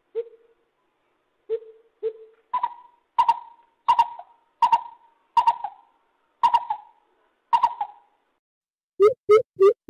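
Bird calls: a few low hooting notes, then a run of harsher, higher single calls about one every 0.7 seconds, and a quick series of low hoots starting near the end.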